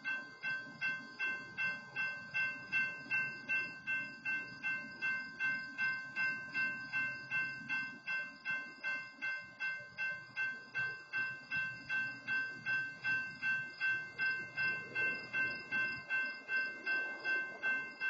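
Railroad grade-crossing warning bell ringing steadily at about two strokes a second. The crossing signals are active because a stopped freight train is blocking the crossing. A low rumble runs underneath.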